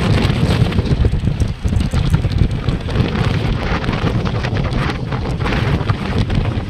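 Wind buffeting the microphone: a loud, uneven rumble that rises and falls in gusts.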